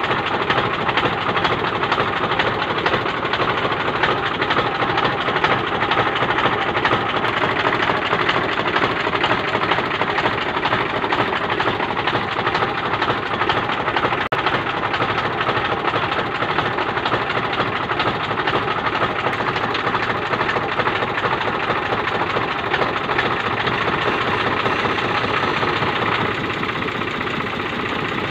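Tractor engine running steadily, driving a PTO-shaft-coupled piston spray pump, with a fast, even knocking clatter.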